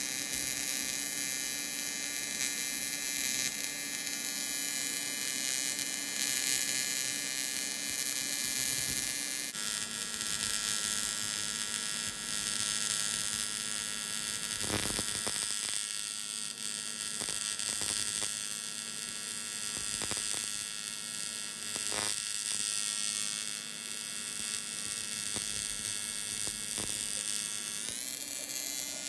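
AC TIG welding arc from an Everlast welder on aluminium, giving a steady electric buzz. Its pitch steps slightly lower about nine seconds in, and it sweeps upward near the end.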